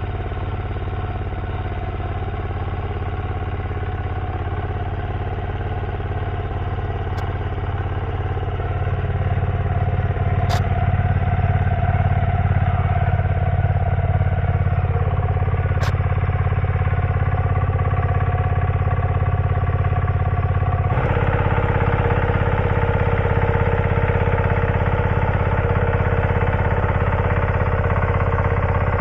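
Two-wheel walking tractor (power tiller) engine running steadily, getting louder about nine seconds in, with a shift in its tone about two-thirds of the way through.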